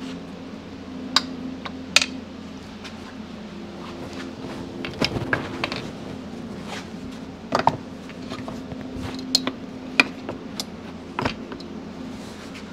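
Scattered light knocks and clicks from handling the assembled aluminium crankcase of a 1972 Yamaha 250 MX two-stroke: the crankshaft turned by hand, then the cases turned over and set down on the bench blocks. A steady low hum runs underneath.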